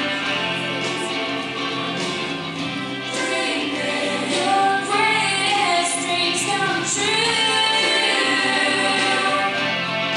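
An upbeat Christian children's song plays, with a group of voices singing over instrumental backing.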